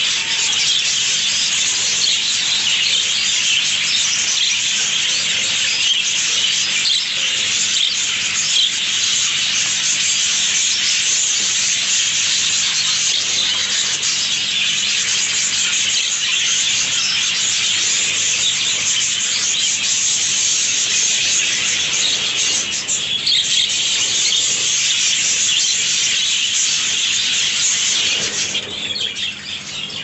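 A room full of budgerigars chattering together: a dense, continuous high twittering, with a low steady hum underneath.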